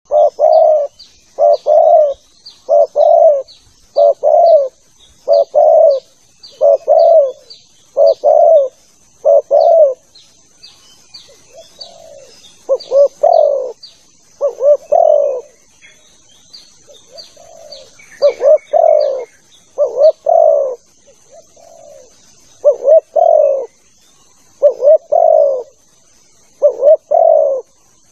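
Spotted dove (tekukur) cooing over and over in paired notes, a phrase roughly every one to one and a half seconds, with a short lull of softer coos in the middle. A faint steady high whine sits behind it.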